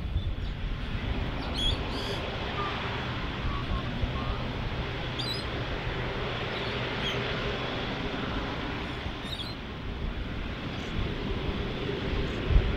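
Singapore Airlines Airbus A380's Rolls-Royce Trent 900 engines running at low power as the jet rolls slowly along, a steady rumble and hiss with a faint hum. Small birds chirp a few times over it, and there is a short low thump near the end.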